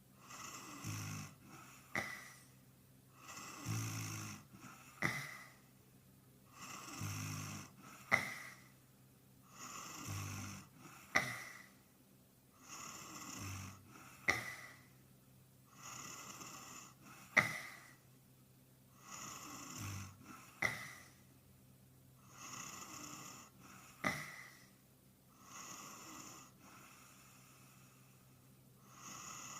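A man snoring in a steady rhythm, about one breath every three seconds, each snore followed by a short sharp click. The recording is sped up and pitched up as a nightcore edit.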